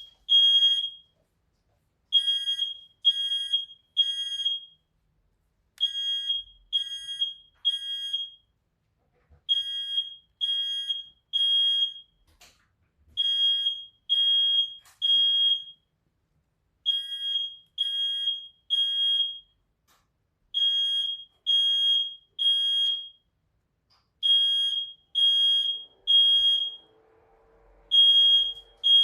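Smoke alarm going off, set off by smoke from burning paper: loud, high-pitched beeps in groups of three followed by a pause, the standard temporal-three alarm pattern, repeating about every three and a half seconds.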